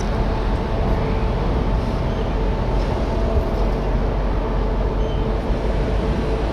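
The passenger ferry Pride of Rotterdam's engines and machinery running as it comes in: a steady low rumble with a hum of several steady tones.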